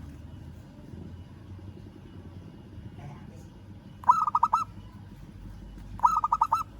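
Local zebra dove (perkutut) calling to challenge a rival: two short phrases of quick rippling cooing notes, one about four seconds in and the second about two seconds later.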